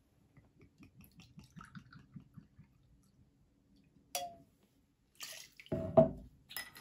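White rum glugging faintly out of the bottle into a small glass measuring cup, a single light clink of glass just after four seconds in, then the measured rum splashing into a stainless steel cocktail shaker near the end, the loudest sound here.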